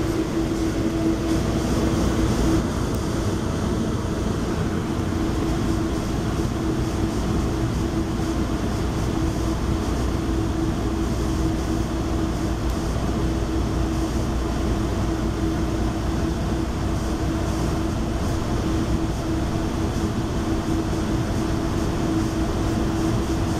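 Interior noise of a commuter rail passenger coach: a steady rumble with a constant low hum.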